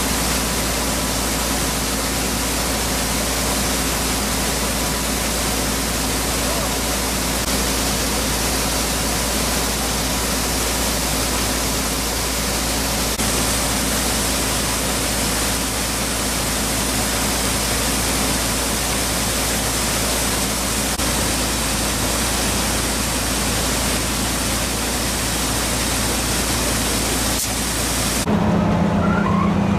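New Holland combine harvester unloading shelled corn: a steady rushing hiss of grain pouring from the auger spout into a truck trailer, over the low hum of the engine and auger. Near the end the hiss drops away and a louder engine drone takes over.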